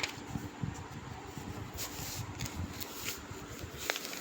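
Low, uneven background rumble with a faint steady hum, and a couple of light clicks near the end: the room and microphone noise of a narration recording.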